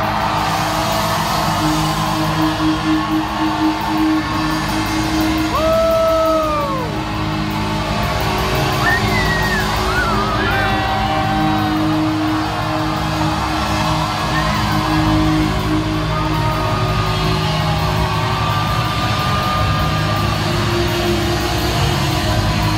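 Live post-hardcore rock band playing loud, with guitars, bass and drums, and yelled singing, heard from the audience in a large hall. A held note bends and falls away about six seconds in, with short sliding notes a few seconds later.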